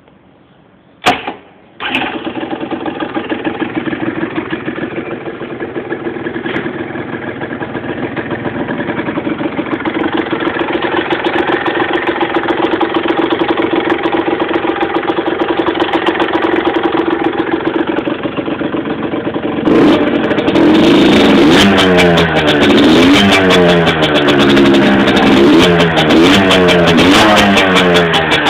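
Derestricted HM Derapage 50cc two-stroke motorbike engine starting about two seconds in and idling steadily. Near the end the throttle is blipped repeatedly, about six quick revs up and back down.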